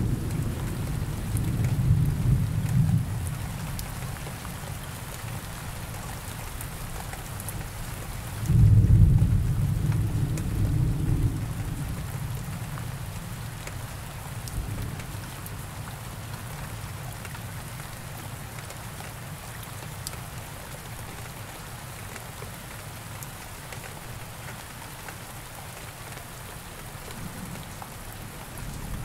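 Steady rain with rolls of thunder. A low rumble dies away over the first few seconds, then a louder peal breaks in suddenly about eight and a half seconds in and rumbles off over the next few seconds, leaving the rain alone.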